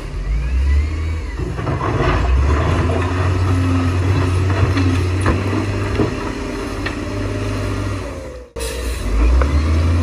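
Heavy diesel earthmoving machinery, bulldozers, a wheel loader and dump trucks, running hard under load, with a deep engine drone and a few scattered clanks. The sound breaks off abruptly for a moment about eight and a half seconds in.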